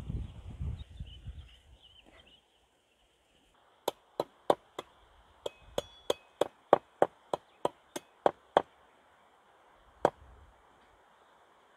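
Cleaver chopping on a round wooden chopping block: a run of about fifteen sharp chops, roughly three a second, with a short pause after the first four, then one last chop near the end. A low rustling bump of handling comes at the start.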